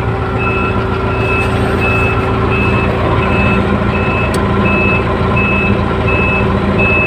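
An electronic warning beeper in a Grove GMK5130 mobile crane sounding a steady single-tone beep about every 0.7 seconds, over the crane's diesel engine running steadily.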